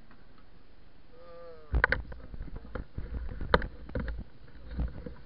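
Rumbling knocks and thuds on the camera microphone as the camera is moved and handled, with one sharp click about halfway through. A brief voice comes just before them.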